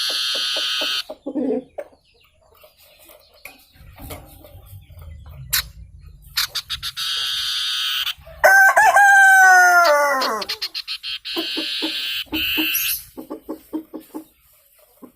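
A wild forest fowl, called 'sirtu hutan' in Indonesia, calling to challenge a rival. It gives rapid buzzing trill runs, one loud crow about halfway through that slides down in pitch over about two seconds, and quick series of clucks near the end.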